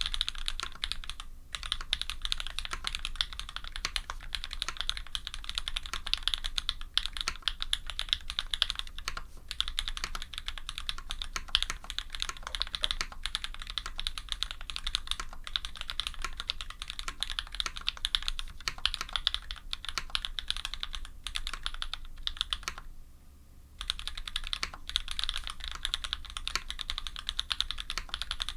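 Fast continuous typing on a custom F1-8X mechanical keyboard with lubed SP-Star white linear switches in an aluminium sandwich plate, with GMK keycaps: a dense stream of key clacks, pausing for about a second near the end.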